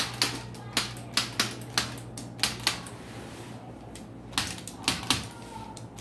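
A handheld computerized chiropractic adjusting instrument clicking as it delivers a series of quick taps to the spine: about a dozen sharp clicks in irregular runs, with a pause of over a second in the middle.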